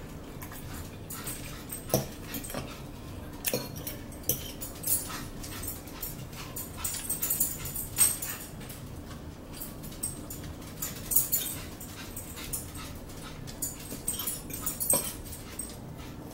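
Forks clicking and scraping on plates as two people eat, in irregular short knocks, with a few brief high squeaky sounds around the middle and near the end.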